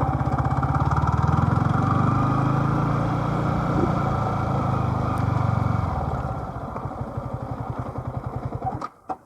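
Motorbike engine running under way, a steady rapid pulsing; it eases off about six seconds in and cuts off abruptly near the end.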